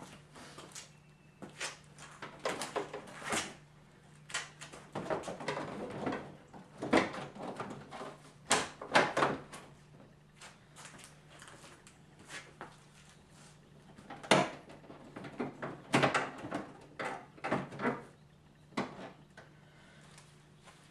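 Irregular clicks, clunks and rattles of car parts and tools being handled and fitted back together, in clusters with short pauses, over a faint steady low hum.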